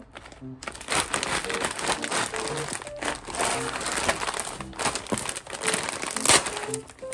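Plastic snack packaging crinkling as it is handled: the clear outer bag of a Crown Jolly Pong Marshmallow multipack and the individual packs inside rustle and crackle unevenly, with louder bursts as the bag is turned and pulled open.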